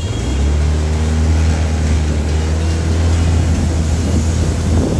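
Engine of a moving vehicle running steadily at a constant speed, a low even drone with road and wind noise over it; the drone breaks off just before the end.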